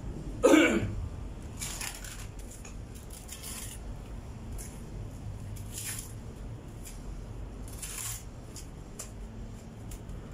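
Small steel trowel scraping wet cement mortar from a metal pan and spreading it along the base of a concrete wall, in short scrapes a couple of seconds apart. About half a second in, a brief, louder sound glides down in pitch.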